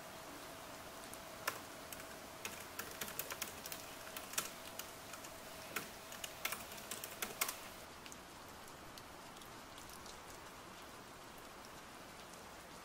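Typing on a MacBook laptop keyboard: a quick run of key clicks that thins out after about eight seconds, over a steady hiss of rain.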